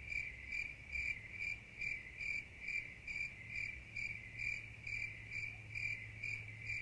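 Cricket chirping at an even pace of about two and a half chirps a second, one high note repeated with no variation. It starts and stops abruptly, like the 'crickets' sound effect laid over an awkward silence.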